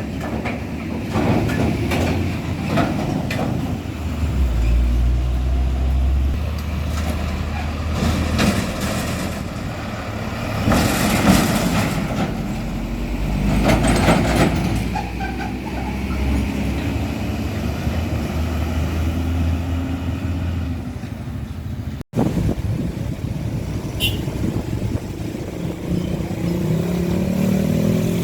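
Road traffic with heavy diesel trucks driving past: a steady low engine rumble, with louder swells as vehicles pass close. The sound cuts out for an instant about two-thirds of the way in.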